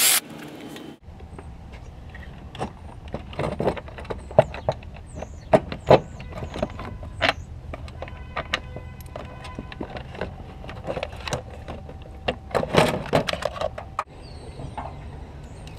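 Scattered clicks, knocks and rattles of a plastic battery tray and hand tools being handled as the tray is unbolted and lifted out of the engine bay, over a steady low hum. A brief whine sounds about eight seconds in.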